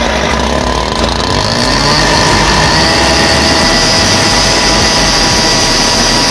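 Two-stroke petrol cut-off saw (a Stihl saw) running at high revs. About two seconds in its abrasive disc bites into scrap metal, adding a steady high-pitched grinding whine.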